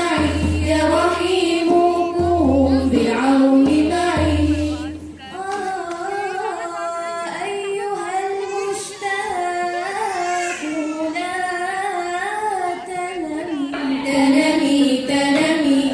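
Background music: a high solo singing voice holding and bending long melodic notes, with a low pulsing throb under the first five seconds or so.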